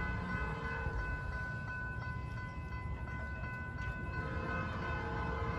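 Norfolk Southern locomotive horn blowing a steady chord of several notes for the grade crossing while the train is still out of sight, over a low rumble. About four seconds in the chord grows fuller as a lower note comes in.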